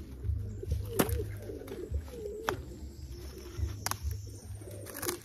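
Birds cooing in repeated low, wavering phrases, with a few sharp clicks between them.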